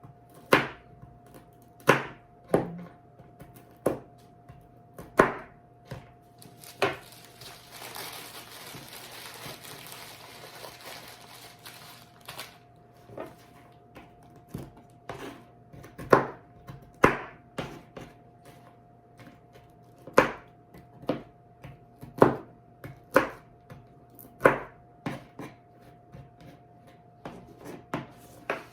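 A knife chopping walnuts on a cutting board, in sharp, irregular strokes about once or twice a second. About a third of the way in, the chopping gives way for a few seconds to a soft scraping hiss, with a faint steady hum underneath.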